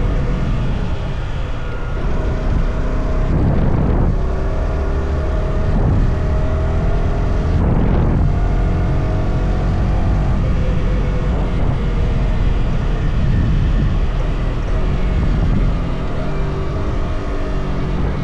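Yamaha R125's single-cylinder four-stroke engine, stock exhaust, pulling through the gears while riding. Its pitch climbs, then drops back at each of several gear changes.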